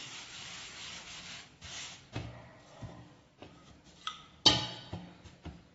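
A hand rubbing dusting flour over pizza dough, then a wooden rolling pin rolling the dough out on a steel plate, with a few knocks. The sharpest knock comes about four and a half seconds in.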